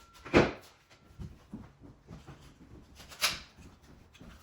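A few sharp knocks on wood, two of them loud and about three seconds apart, with fainter taps between: a length of wooden window trim being handled and set against the window.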